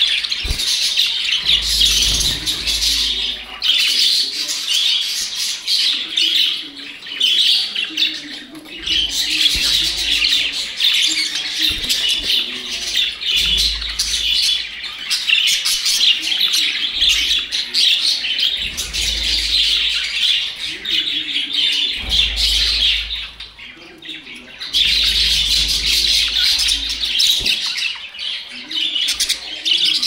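A flock of caged budgerigars chattering and chirping continuously, many birds calling at once, with a brief lull a little over three-quarters of the way through.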